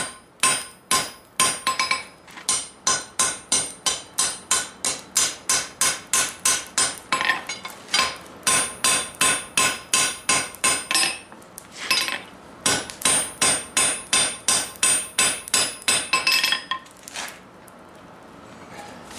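Hand hammer striking red-hot steel on an anvil, hot-forging a curve into the bar. Steady blows come about two to three a second, each with a ringing clang. The blows pause briefly twice and stop a couple of seconds before the end.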